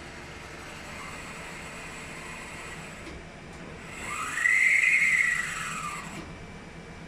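Hauser 5SM jig grinder's axis drive motor running in rapid traverse. The whine climbs in pitch about four seconds in and falls back over about two seconds, as the motor speeds up and slows down.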